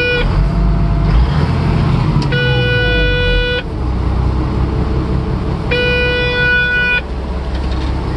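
Motor grader's low air pressure warning alarm beeping in long, evenly spaced pulses, about one every three and a half seconds, over the diesel engine running. The brake air system is not charging because the compressor's feed hose has come off.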